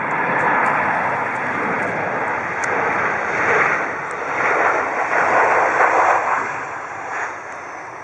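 Jet engines of a Boeing 737-700 airliner passing low on final approach and flare: a loud steady rush of jet noise that swells in the middle as the aircraft goes by and eases near the end.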